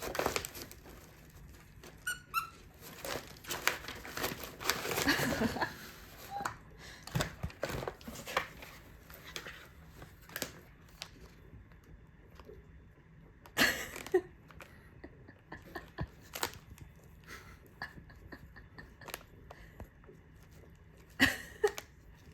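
Packaging being handled: crinkling and rustling with scattered clicks and taps, a brief squeak about two seconds in, and two sharper knocks later on.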